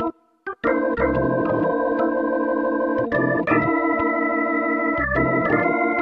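Electronic organ music: a short chord cut off at the start, a brief pause, then held chords that change every second or two.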